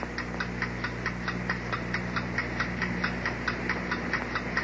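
Clock-like ticking, fast and even at about six ticks a second, over a low steady drone, counting down the final seconds.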